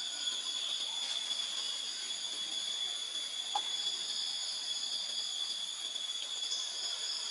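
Steady, unbroken insect chorus: several high-pitched drones held at constant pitch, with a faint single tick about halfway through.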